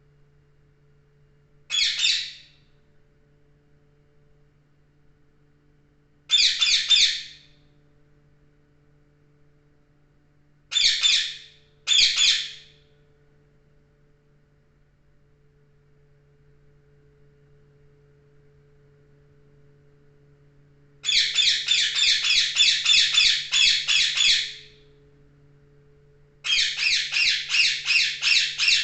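Parrot squawking loudly in short bursts: single harsh calls spaced several seconds apart, then two long runs of rapidly repeated squawks, about four a second, in the second half.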